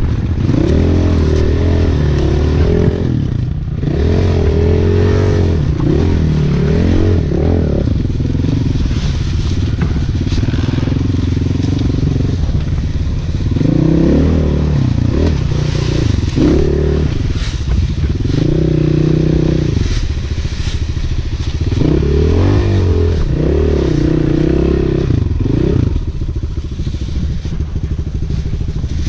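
Four-stroke dirt bike engine ridden close up, its pitch rising and falling again and again as the throttle opens and closes. There is a steadier stretch in the middle.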